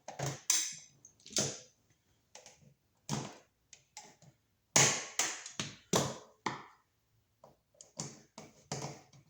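Irregular taps and clicks of hand tools on a receptacle as the black wire is hooked under the brass terminal screw and the screw is tightened.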